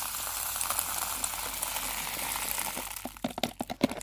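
Birdseed pouring into a bird feeder: a steady rushing patter of seeds. About three seconds in it gives way to a quick run of clicks and knocks.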